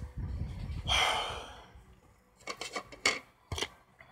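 Small objects being handled on a desk: a low handling rumble and a breathy rustle, then several sharp clicks in quick groups.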